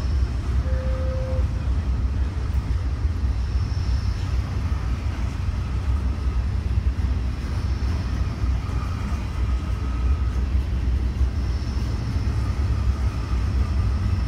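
BNSF double-stack intermodal freight train rolling past close by: a steady low rumble of wheels on rail, with faint high squeals that come and go.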